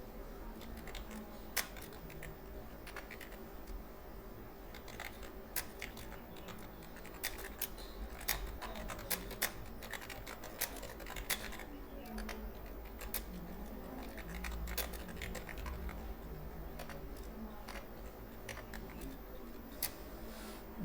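Computer keyboard keys being typed on in irregular clicks, with pauses between runs of keystrokes, over a faint low hum.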